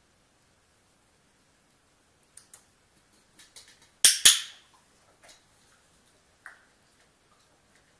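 Dog-training clicker pressed and released: a sharp double click about four seconds in, by far the loudest sound. Lighter scattered ticks before and after it come from the dog's claws on the tile floor and the steel bowl.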